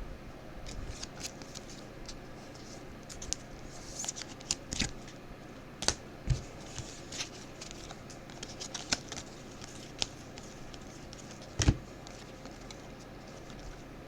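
Trading cards being handled and flipped through, with scattered light clicks and rustles and a sharper knock near the end.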